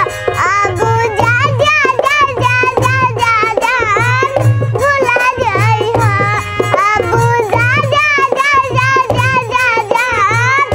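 Young girl singing a Hindi-language film-style song, her voice wavering and ornamented on each phrase, over backing music with a steady low drum beat.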